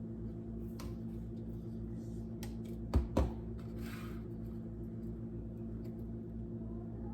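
Soft scraping and handling sounds of a utensil spreading cream cheese icing over a cake, with two sharp knocks close together about three seconds in, over a steady low hum.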